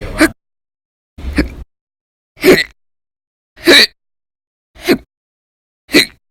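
A woman hiccuping loudly and repeatedly: six sharp hiccups, about one every 1.2 seconds. They belong to a bout of chronic hiccups that goes on for hours each day.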